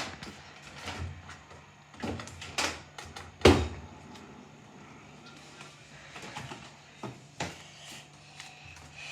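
A Bosch dishwasher being opened and handled: a few sharp knocks and clatters of the door and racks, the loudest about three and a half seconds in, over a steady low hum.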